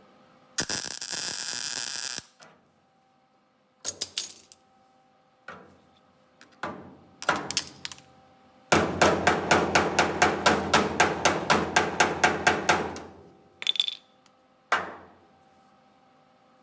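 Hammer blows on sheet-metal car body work: a few scattered metallic knocks, then a fast steady run of about four strikes a second for some four seconds. Near the start there is also a short burst of steady hissing noise.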